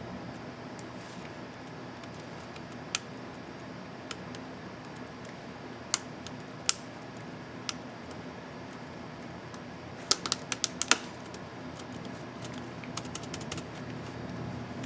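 Small sharp plastic clicks from the right Shift key of an Acer M5-581T laptop keyboard as the keycap and its hinge clips are handled and snapped into place: scattered single clicks, then a quick run of about six about ten seconds in, over a steady low hum.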